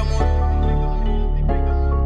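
Hip-hop beat with no vocals: sustained chords over a deep bass, the chord changing about one and a half seconds in.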